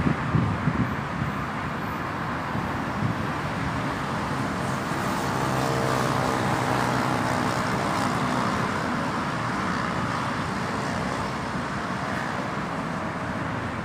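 Steady outdoor rumble of traffic with a Hyundai Rotem Series 2000 electric metro train approaching in the distance; a faint hum of several steady tones stands out through the middle.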